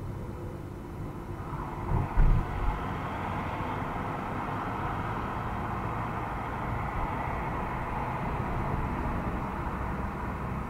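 Car interior driving noise, engine rumble and tyre-on-road noise, as picked up by a dash cam's built-in microphone. A few low thumps come about two seconds in, and the road noise grows louder after that and holds steady.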